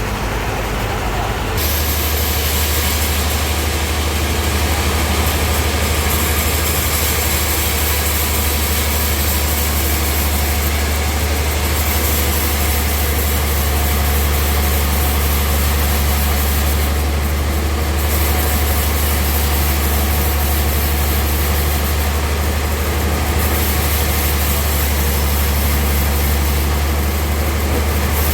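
Sawmill machinery running steadily: a deep, constant engine hum that settles in about a second and a half in, under a steady high hiss.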